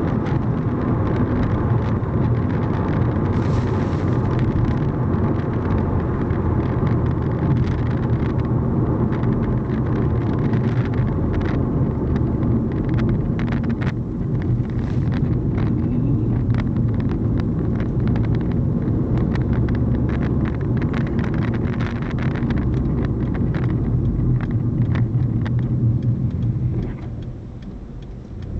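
Car driving, heard from inside: a steady low engine and road rumble with frequent short clicks or rattles through it, easing off briefly near the end.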